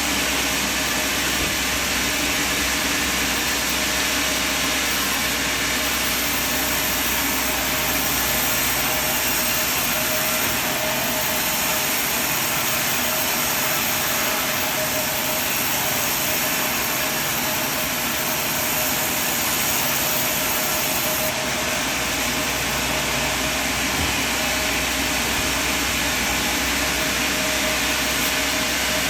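A sawmill running: continuous, steady machine noise with a constant tone, its deep rumble dropping away for a stretch in the middle and returning near the end.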